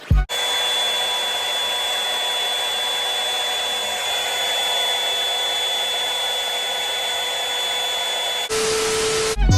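Handheld hair dryer blowing steadily with a thin whine, then changing to a different setting for about a second before it stops.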